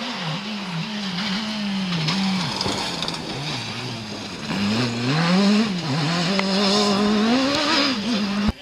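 Rally car engine revving hard under load, its pitch rising and falling again and again as the car accelerates and lifts through the stage. It cuts off abruptly near the end.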